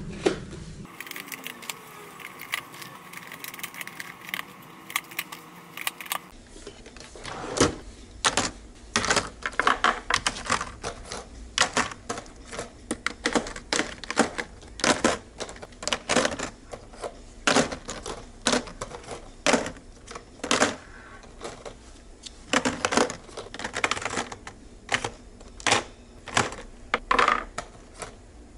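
Small glass contact-lens vials with plastic caps clicking and clinking against each other as they are picked up and set back down in a drawer tray. From about seven seconds in there are many quick, irregular clicks, several a second.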